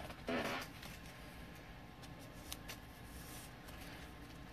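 Faint handling of a trading card being put into a clear plastic card holder, with a few light clicks.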